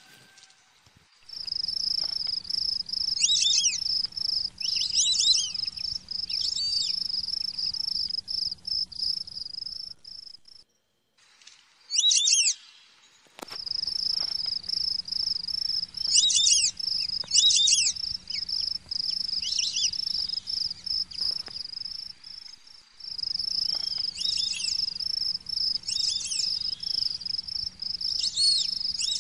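Night ambience of crickets trilling steadily at a high pitch, with short chirping calls repeated over the trill every second or two. The trill cuts out twice and comes back.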